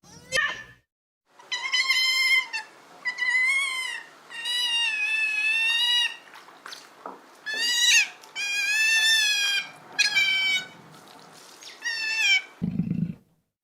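An animal calling over and over in high, drawn-out cries, about seven of them, some held for more than a second.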